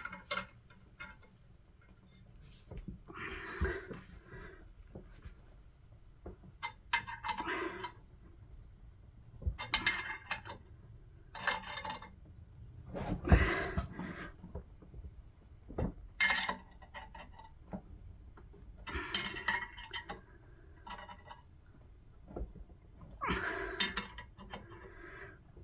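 Metal hand tools and parts clinking and scraping in short, separate bursts every few seconds, with quiet gaps between, as a spanner is worked on a stubborn nut.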